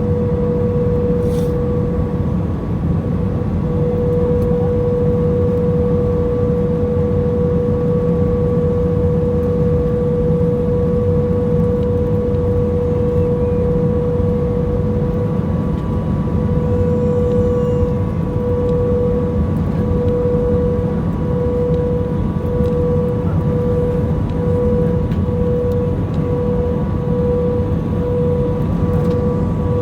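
Jet airliner cabin noise: a steady low rumble of engines and airflow under a held tone that, about halfway through, starts to pulse, the pulses coming faster toward the end.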